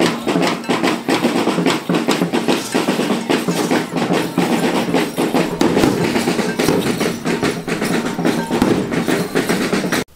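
Loud, busy music thick with clattering, clicking percussion that never lets up. It cuts off suddenly near the end.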